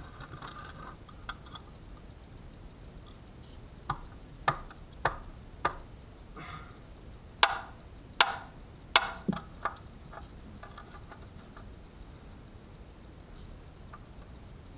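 Hammer blows on a wrench fitted to an oil drain plug: a series of sharp strikes spaced roughly half a second apart, the three loudest about halfway through, followed by two lighter taps. The plug is seized from being done up far too tight.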